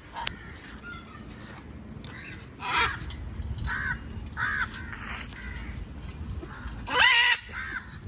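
Birds giving a series of short, harsh, squawking calls every second or so, the loudest a little before the end.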